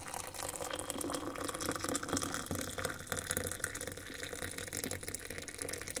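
Hot water poured from an electric kettle in a thin, steady stream into a mug over a tea bag, the mug filling.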